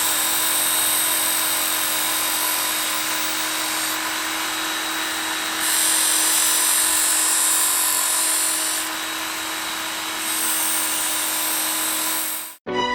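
Electric power tool running steadily with a constant hum and a strong high hiss; the hiss gets louder about halfway through and eases again a few seconds later. The sound cuts off abruptly near the end.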